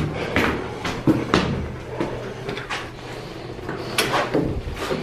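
A series of about eight irregular knocks and clicks, like doors and objects being handled, over a low steady hum.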